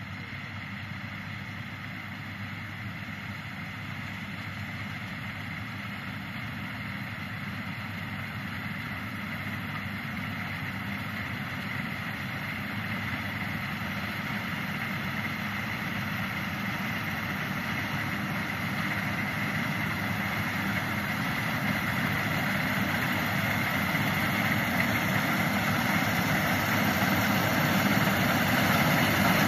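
Rice combine harvester running steadily as it cuts through the standing rice, growing gradually louder as it comes closer.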